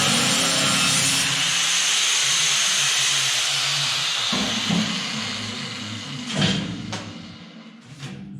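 Angle grinder cutting through the tack welds that hold a steel door frame: a loud, steady hiss that fades off after about four seconds, followed by a couple of sharp knocks as the frame is worked loose.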